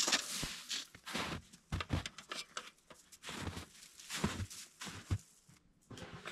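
Dense, wet snow crunching and scraping in irregular bursts as it is scooped by hand into a metal pot.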